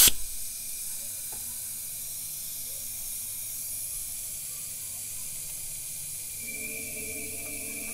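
Steady hiss of compressed air flowing through a cylinder leak tester fitted in a spark plug hole of a Ford 4.6 V8, used to find when the valves are shut. About six and a half seconds in, a faint whistling tone joins the hiss.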